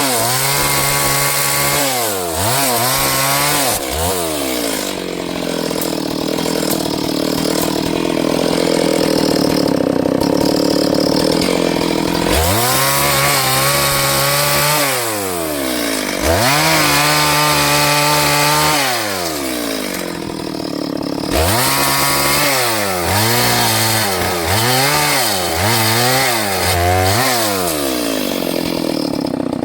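Small chainsaw running loud, its engine revving up and dropping back again and again. It holds at high revs for several seconds at a time, as when cutting wood, and gives a quick series of short revs near the end.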